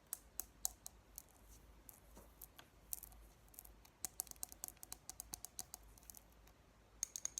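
ASMR tapping: light, sharp taps and clicks on a hard object, some single and some in quick runs of several taps a second.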